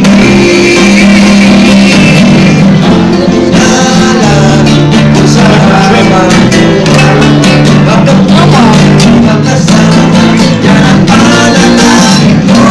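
A small live band playing close to the microphone, with an acoustic guitar and a plucked upright double bass and a voice singing along.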